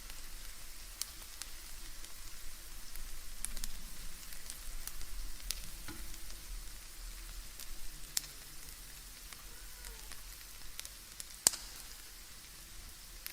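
Bacon frying in a pan: a steady sizzle of hot fat with scattered sharp pops, one louder pop near the end.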